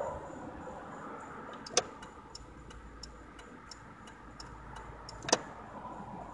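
Car turn-signal indicator ticking steadily inside the cabin, about three ticks a second, with two sharper, louder clicks, one about two seconds in and one about five seconds in. A passing car fades away at the start.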